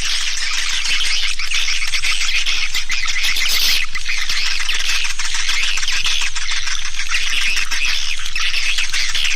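A dense, unbroken chorus of high, rapid swiftlet twittering. It is a swiftlet lure call ('suara panggil'), the kind played to draw edible-nest swiftlets into a nesting house.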